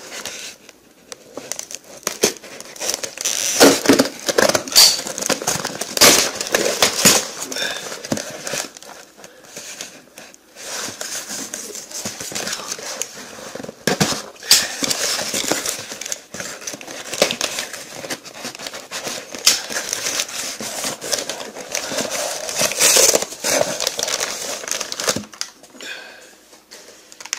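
A taped mail parcel being handled and torn open by hand: irregular crinkling, crackling and ripping of its wrapping and tape.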